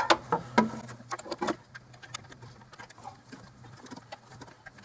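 Hand torque wrench ratcheting on an intake manifold bolt: a run of sharp metallic clicks, loudest in the first second and a half, then fainter, uneven ticks.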